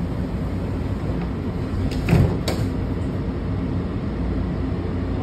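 Washington Metro railcar's steady rumble, with a short thump about two seconds in and a sharp click half a second later.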